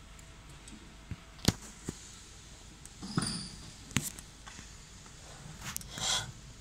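Sharp clicks and knocks of metal parts as the head arm and column of a desktop fiber laser marking machine are handled, the loudest about one and a half seconds in, with two short scraping rustles, one midway and one near the end.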